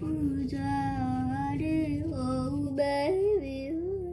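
A female voice singing a slow melody with long held notes and short slides between them, over quiet background music.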